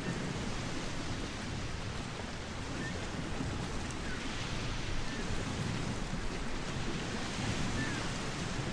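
Steady outdoor wind rumbling on the microphone, heaviest in the low end, with a few faint short high chirps scattered through it.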